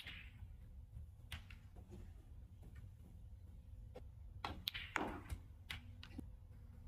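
Scattered sharp clicks of snooker balls and cue: the cue tip striking the cue ball and balls knocking together, with a quick cluster a little past halfway, over a low steady hum.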